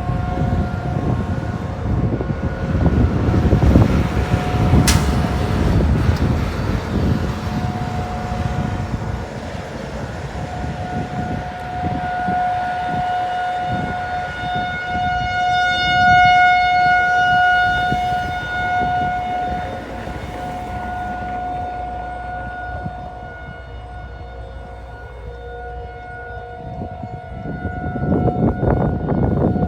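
Federal Signal 2001 rotating outdoor warning siren sounding a steady single tone. It swells louder and fades as the horn turns toward and away, loudest about halfway through. A low rumbling noise lies underneath, heaviest in the first few seconds and again near the end.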